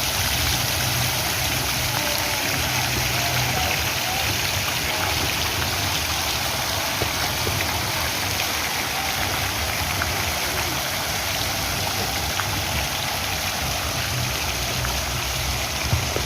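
Steady rushing noise with a low rumble underneath and a few faint ticks, like running water, rain or wind.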